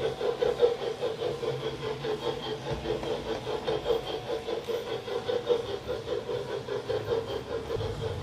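Sound decoder in an LGB garden-scale steam locomotive model, playing a simulated steam exhaust through its small onboard speaker: a steady run of chuffs, several beats a second.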